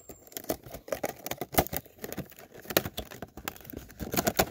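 Stiff clear plastic packaging crinkling and crackling in many irregular sharp snaps as hands handle and pull it off a box.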